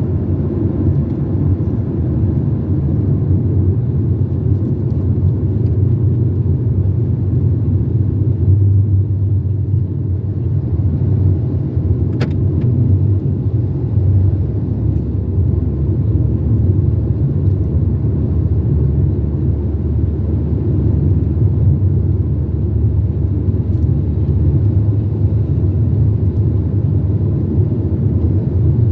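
A car driving along a highway: steady low rumble of engine and road noise, with a single brief click about twelve seconds in.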